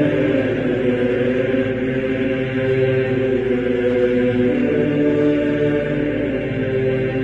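Background music of chant-like voices, long notes held and changing pitch slowly.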